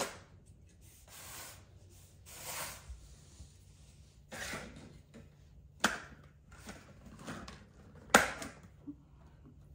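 Plastic toy train track sections being handled and fitted together: soft rustling, then two sharp clicks about six and eight seconds in, the second the loudest.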